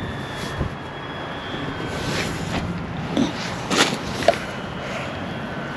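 Wind blowing over the microphone, with a thin steady whistle from taut fishing lines singing in the wind, fading in and out. A few brief rustles and knocks come about halfway through.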